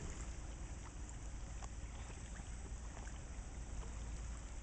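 Soft sloshing and lapping of pond water as a young horse and two people swim through it, over a steady low rumble.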